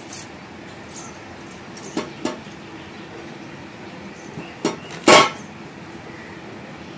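A few light knocks and clinks of household objects, with one louder clatter about five seconds in.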